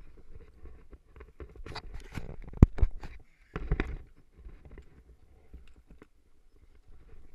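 Knocks and scrapes of trekking-pole tips, boots and clothing against rock as a hiker scoots down a steep rocky slope. A cluster of sharp knocks comes about two to four seconds in, the loudest a single sharp knock near the middle, with soft scuffing around it.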